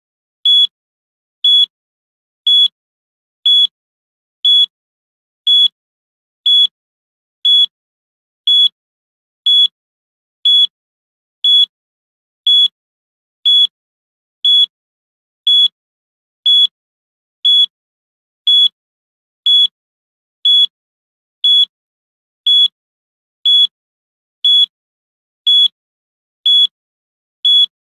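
Countdown timer beeping once a second: short, identical high-pitched electronic beeps counting down the seconds.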